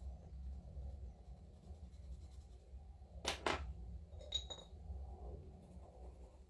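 Colour pencil scratching softly on paper. About three seconds in come two sharp clicks, and a moment later a brief clink, as one pencil is put down and another picked up.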